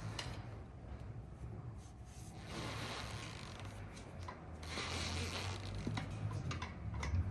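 Tire irons levering a knobby dirt bike tire's bead over the rim, with faint rubber rubbing and scraping and a few small clicks of the irons.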